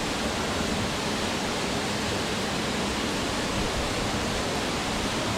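Steady rush of a waterfall falling into its pool, an even noise without breaks.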